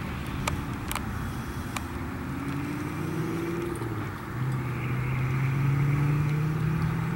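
A motor vehicle's engine running, a low steady hum that grows louder and rises slightly in pitch from about four seconds in. A few sharp clicks come in the first two seconds.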